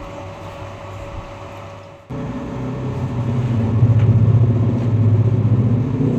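Stick-welding arc on rebar, a steady crackling buzz with a strong low hum. It jumps suddenly much louder about two seconds in.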